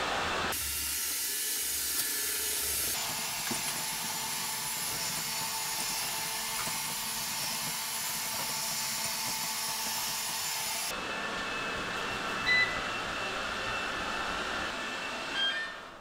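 Three robot vacuums (Kyvol Cybovac E20, E30 and E31) running at once on a wooden floor: a steady hiss of suction motors and brushes with a faint high whine. The sound shifts abruptly a few times, and a couple of short beeps come near the end.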